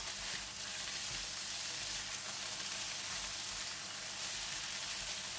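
Spinach stems and fish balls sizzling steadily in a non-stick pan while being stirred with a silicone spatula.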